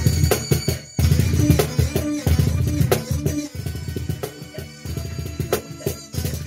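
Meinl wooden cajon played by hand, with deep bass strokes and sharp slaps in a busy rhythm, over a recorded song with a plucked-string melody.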